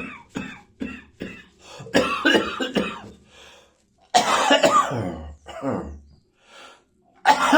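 A person coughing in repeated fits from a tickle in the throat. A run of short, quick coughs is followed by louder bursts of several coughs about two seconds in and again about four seconds in, with breaths drawn in the gaps. Another fit starts near the end.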